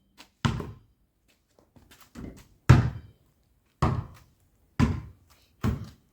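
A ball tapped and bouncing on a hard surface: a string of single thunks at uneven intervals, roughly one a second, each dying away quickly, with a couple of softer taps among them.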